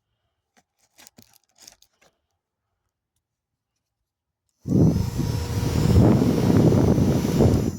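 A few faint handling clicks, then a battery-powered mini fan switches on about two-thirds of the way in and runs loudly: a rush of air with a steady motor whine.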